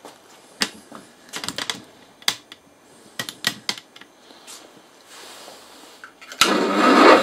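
A series of sharp metallic clicks and knocks from handling at the drill press. Near the end the belt-driven column drill press is switched on and runs with a steady whir; its drive belts are slackened so that it will slip if the bit jams.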